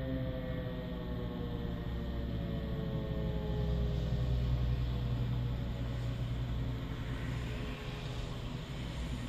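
Civil-defence siren winding down at the end of its warning signal: a falling tone that fades away over the first few seconds. Under it is a steady low rumble of background noise.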